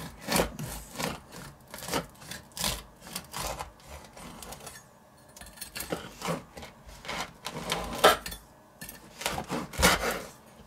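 Serrated bread knife sawing back and forth through the hard crust of a dense, under-risen loaf on a wooden cutting board: a run of rasping strokes at uneven spacing, with a short pause about four and a half seconds in.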